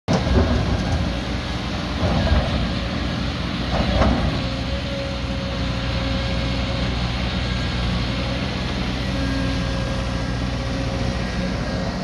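Kobelco SK220 crawler excavator's diesel engine and hydraulics working steadily as it digs, with a backhoe loader running behind it. A few knocks and scrapes of the bucket in rocky soil come in the first four seconds.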